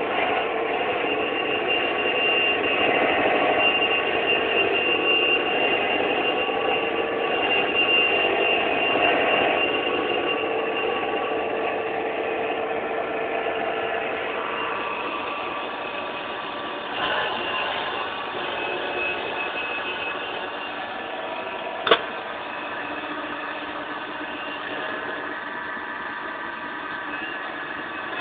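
Camshaft regrinding machine running: its motor and belt drive whir steadily with several high, squealing tones as the camshaft turns against the grinding wheel. One sharp click sounds about two-thirds of the way through.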